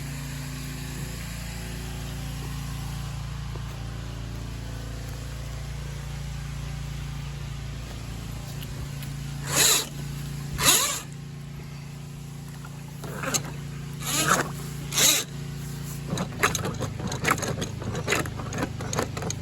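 Drain-cleaning cable machine motor running steadily, working its cable through a tree-root clog in a sewer line. About halfway through come five short, loud bursts of noise, and near the end a fast irregular clattering.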